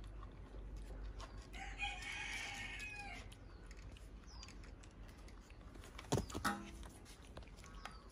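A single long animal call about two seconds in, held for about a second and a half and dropping in pitch at its end. A couple of sharp knocks follow about six seconds in.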